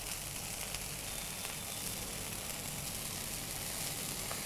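Oil and water bubbling and sizzling steadily in a pan of sautéing onion, garlic and green chilli, as an even hiss.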